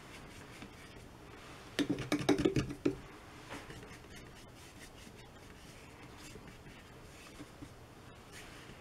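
Watercolour brush at work: a quick run of clicks and scrapes about two seconds in as the brush takes up paint, then faint brush strokes on the paper.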